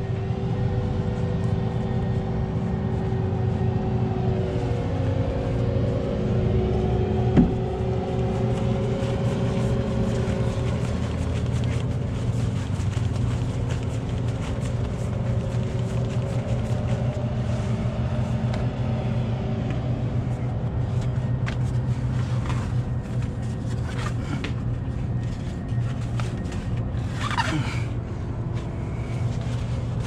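A vehicle engine running steadily, with a sharp knock about seven seconds in and scattered clicks near the end.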